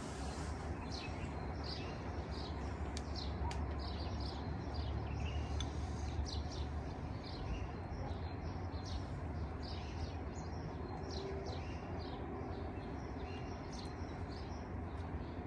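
Small birds chirping, with many short, high calls repeating throughout, over a steady low rumble.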